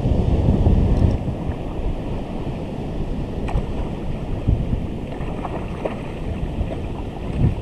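Wind buffeting the microphone, with small waves washing in the shallows.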